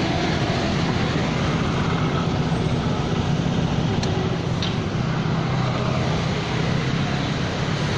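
Street traffic: a steady motor-vehicle engine drone with the general noise of passing road traffic.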